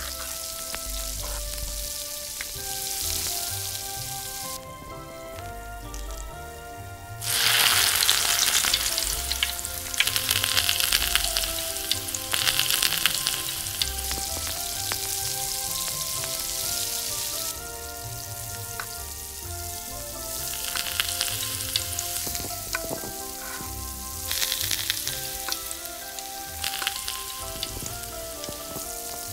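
Shrimp frying in melted butter in a tiny clay pot, sizzling. The sizzle jumps suddenly loud about a quarter of the way in, eases off a little past halfway, then flares up briefly twice more.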